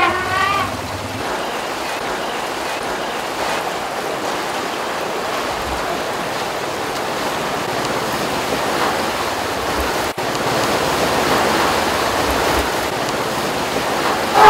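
Asian elephants wading through a shallow river, their legs churning and splashing the water: a steady rush of water, with a brief dropout about ten seconds in.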